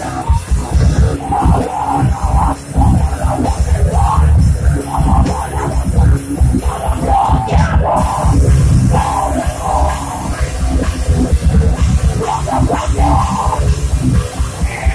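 Live hardcore band playing loud, heavy music through a PA: pounding drum kit and distorted guitar with no break.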